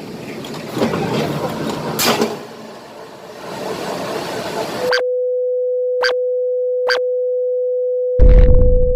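Shop noise with clicks and knocks, then an abrupt cut about five seconds in to a steady electronic beep tone on one pitch, held for about four seconds. Two faint clicks fall during the tone, and near the end comes a loud low thud.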